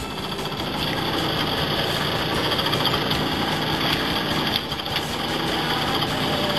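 Boat engine running steadily, a dense, even mechanical drone.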